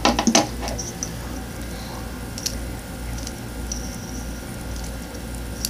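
Handling noise of fingers on a phone and a fidget spinner close to the microphone: a quick burst of knocks right at the start, then a few faint clicks over a low steady hum.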